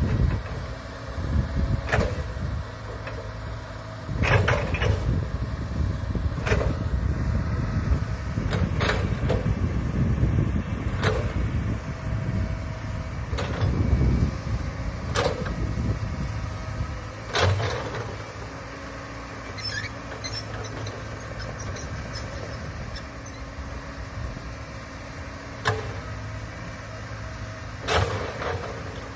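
Komatsu hydraulic excavator's diesel engine working under load, a heavy rumble that eases to a lower, steadier drone about two-thirds of the way through. Short sharp knocks come every couple of seconds.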